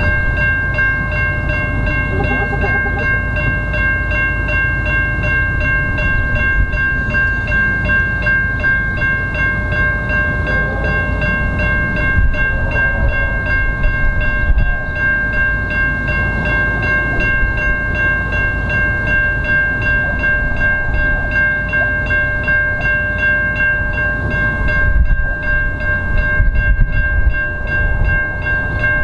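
Two steam locomotives, R class R761 and D3 639, running side by side toward the listener with a low rumble, while a steam whistle holds one long, unbroken chord of several tones.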